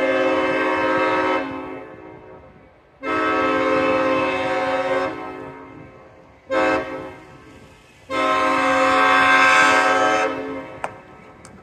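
Diesel locomotive air horn sounding the grade-crossing signal, long, long, short, long: two long blasts, a short toot, then a final long blast that fades out.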